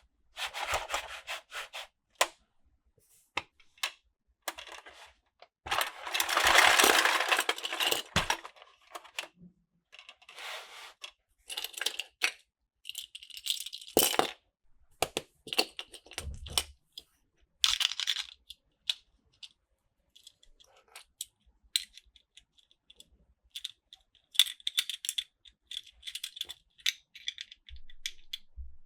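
Hard plastic and die-cast toy pieces being handled: irregular clicks, clacks and small rattles, with a longer rattling scrape about six to eight seconds in.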